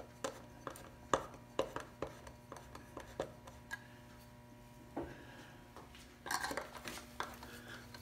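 A string of light, sharp clicks and clinks, about two a second and uneven in strength, over a steady low hum, with a brief scraping rustle about six seconds in.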